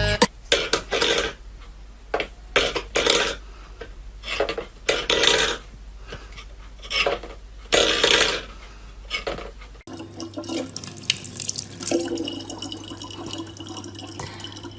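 Water splashing and sloshing in irregular bursts, then, after a cut about ten seconds in, water running steadily, as from a tap, over a low hum.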